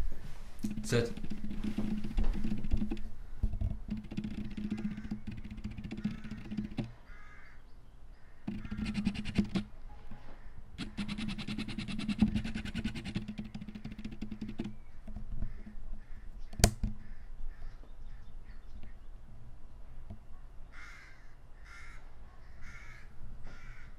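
Autofocus motor of a Yongnuo 50mm f/1.8 lens buzzing in bursts as it hunts for focus, picked up by the camera's built-in microphone; the focusing noise is very loud. One sharp click comes past the middle, and a run of five short buzzes near the end.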